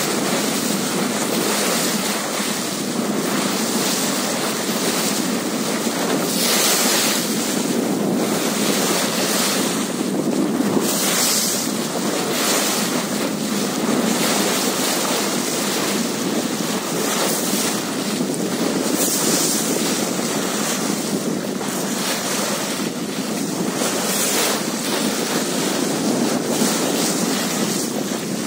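Wind blowing across the microphone over the steady wash of sea waves, with brief louder gusts now and then.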